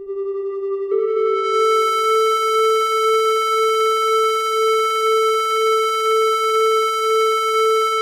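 Yamaha CS01 analog monosynth, run through a tape-echo delay, holding one long note. It starts as a soft, nearly pure tone. About a second in it gives way to a slightly higher, much brighter note, which is held steady with a slow, regular pulse in level.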